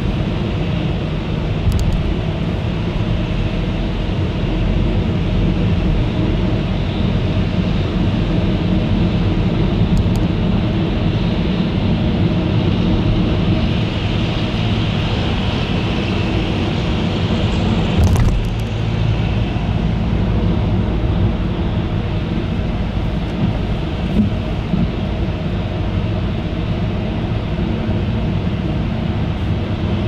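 Steady car running noise heard from inside the cabin while driving: low engine and tyre rumble with road hiss. A few brief clicks, the loudest a short thump about eighteen seconds in.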